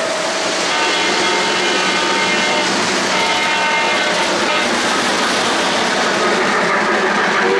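O-gauge model trains rolling on three-rail track: a steady running rumble of wheels and motors, with faint held tones sounding in the first half.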